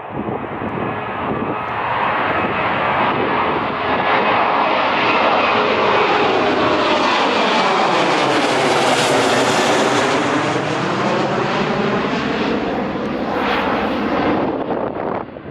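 Airliner passing close by, its engine noise building to a peak about nine seconds in and then easing, with a phasing sweep that falls and rises again as it goes past.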